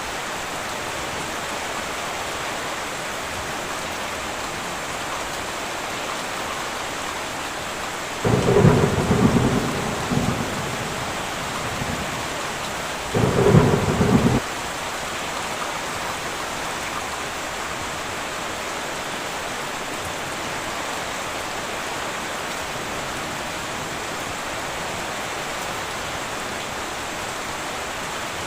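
Heavy rain drumming steadily on a tin roof. Two sudden loud claps of thunder come about eight and thirteen seconds in; the first rumbles off over a couple of seconds.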